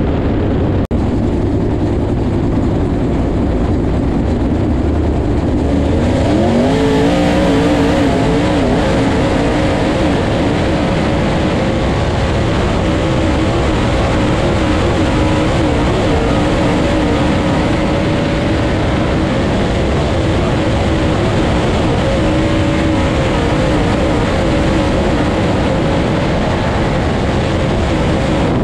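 Dirt late model race car's V8 engine heard from inside the cockpit, running low for the first few seconds, then revving up about six seconds in and held at high revs with small rises and dips, over heavy wind and road noise.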